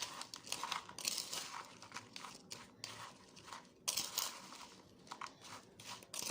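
Carrot slices and brown sugar being stirred together in a container: irregular gritty scraping and crunching, with a brief lull about four seconds in.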